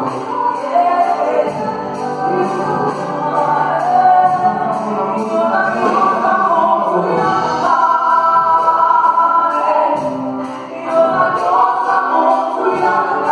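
Live gospel praise singing in Lingala by a small group of female and male singers on microphones, backed by keyboard.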